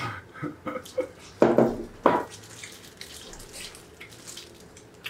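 Close-miked eating sounds: a mouthful of spicy mixed noodles (bibim-myeon) slurped and chewed, with wet smacking and clicking mouth noises. The loudest slurps come between about one and a half and two seconds in.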